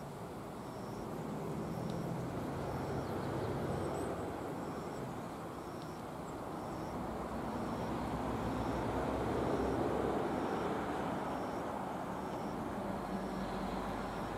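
Motor vehicles passing on a nearby road, their engine and tyre noise swelling and fading twice. Through it an insect chirps in short, high, evenly spaced pulses, a little under two a second.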